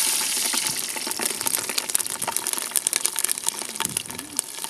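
Whole green chillies frying in hot oil with bay leaves and spices: a loud sizzle that slowly eases off, with many sharp pops and crackles.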